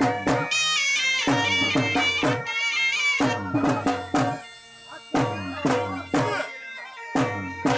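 Saraiki jhumar folk music: fast, regular drumbeats, about four a second, under a high, wavering wind-instrument melody. The drumming thins out briefly about four seconds in, then returns.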